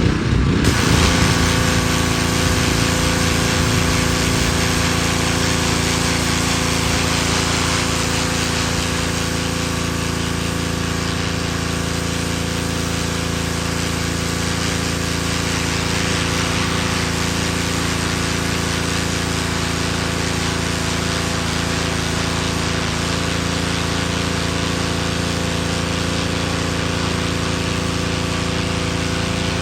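Pressure washer running steadily, its motor note held even under the hiss of the water jet spraying the concrete sidewalk.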